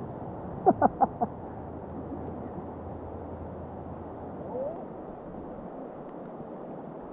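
Steady rush of river water, with four short, loud shouts from a person's voice about a second in.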